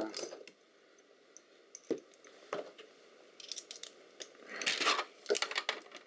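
A few light clicks and metallic clinks from small parts of a laptop docking station being handled during disassembly: two single clicks, then a short clatter about five seconds in.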